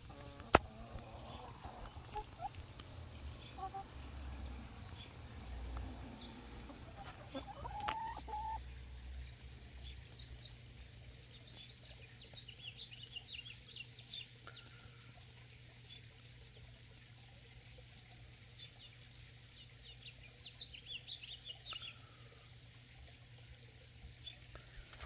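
Backyard hens clucking softly as they forage, with a single sharp click about half a second in. Faint high chirps come in two short spells later on.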